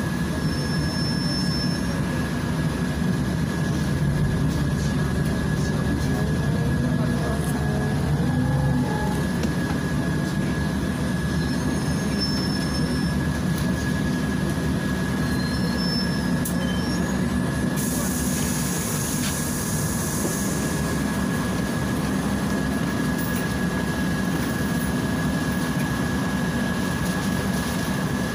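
Cabin noise of a Volgabus 5270G2 city bus under way: a steady low rumble from its Yuchai natural-gas engine and drivetrain with road noise, under a constant thin high whine.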